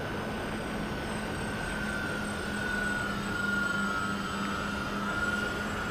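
Twin electric motors of a Dynam Skybus (DC-3) radio-controlled model plane whining in flight over a steady rushing hiss. The whine wavers in pitch and grows a little louder in the middle.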